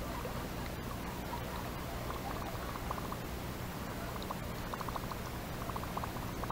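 Water trickling and dripping in small, irregular plinks over a steady background hiss.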